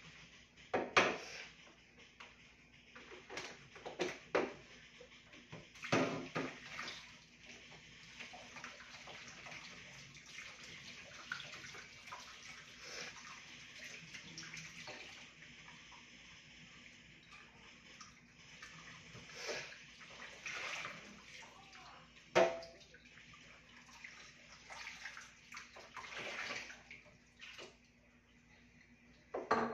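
Tap water running into a kitchen sink during dishwashing, with dishes and glasses knocking and clinking against each other and the sink now and then. The sharpest clink rings briefly, about two-thirds of the way through.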